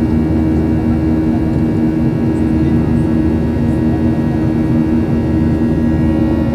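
Boeing 737-800's CFM56-7B turbofan engine at climb power, heard inside the cabin beside the engine: a steady drone with a strong low hum over a rumble.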